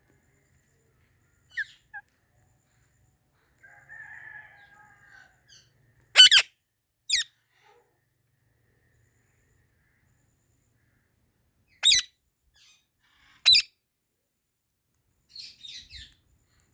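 Indian ringneck parakeet calling in short, shrill screeches. The loudest come about six seconds in, with single screeches near twelve and thirteen and a half seconds. Softer chirps and a quiet, warbling chatter fill the gaps.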